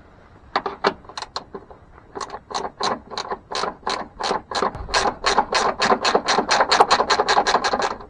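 Ratchet clicking in quick strokes as a long screw is driven in to fasten a ground wire to the truck body: a few clicks, a short pause, then a steady run of about four to five clicks a second.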